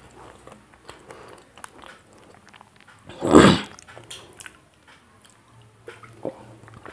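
Close-miked mouth sounds of eating and drinking from a plastic jug: small wet clicks of chewing and swallowing, with one loud, short rushing noise a little past three seconds in.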